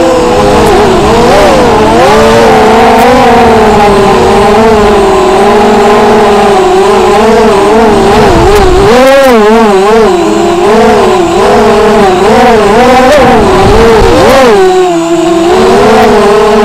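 FPV racing quadcopter's brushless motors and propellers whining loudly through the onboard action camera's microphone. The pitch keeps swooping up and down with the throttle, wobbling fastest around the middle.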